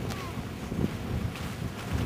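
Wind buffeting the microphone in irregular low gusts, over a steady faint rush of falling water from the Goðafoss waterfall.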